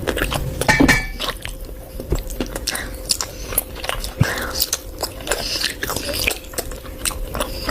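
Close-miked mukbang eating sounds: a person biting and chewing food, with many short, sharp clicks and smacks, over a faint steady hum.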